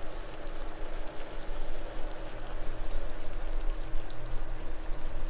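Thick teriyaki sauce bubbling at a simmer around chicken thighs in a frying pan, a steady dense crackle of popping bubbles, with a faint steady hum underneath.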